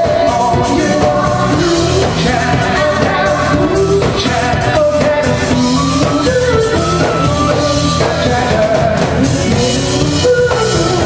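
A live rock band playing amplified: a lead vocalist singing over electric guitars, a drum kit and keyboard.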